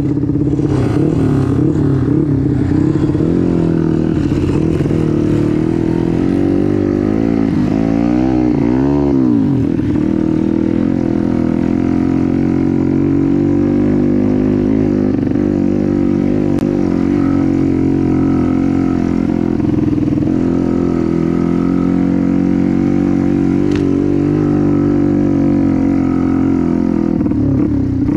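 Small four-stroke trail motorcycle engine running steadily, the revs swinging up and down quickly several times about eight to nine seconds in.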